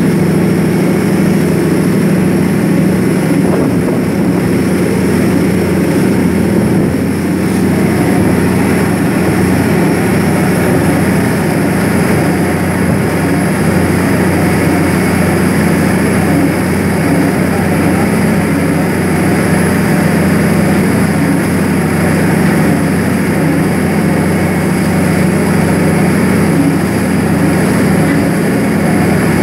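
Loud, steady drone of a large Amazon riverboat's diesel engine running under way, with the rush of its wake water breaking alongside.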